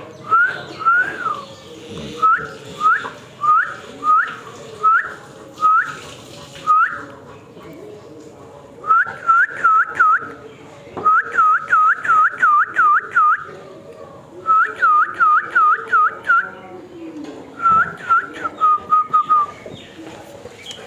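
A person whistling short notes that rise and fall. At first they come singly, about one or two a second, then in several quick runs of rapid repeated whistles.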